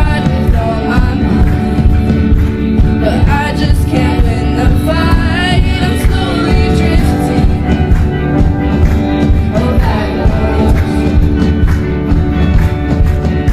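A worship band playing a song, with a lead voice singing over full instruments and a steady beat.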